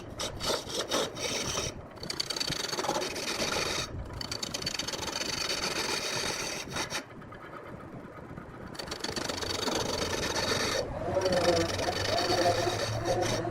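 A turning tool cutting into a log spinning on a large wood lathe: a rough, continuous scraping, broken off abruptly several times.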